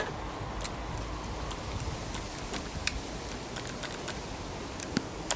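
Steady low background noise with scattered sharp clicks and ticks, the loudest about three seconds in and a small cluster near the end; the saw is not running.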